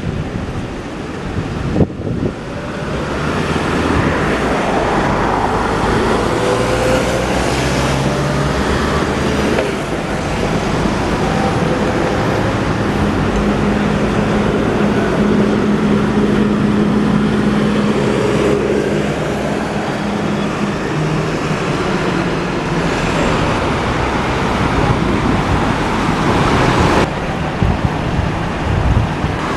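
City road traffic with a hybrid double-decker bus driving through the junction among passing cars. A steady engine note holds for several seconds in the middle, and the sound changes abruptly near the end.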